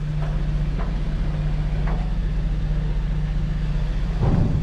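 An engine running steadily with a low, even hum, under a faint hiss. About four seconds in there is a short, louder rumble.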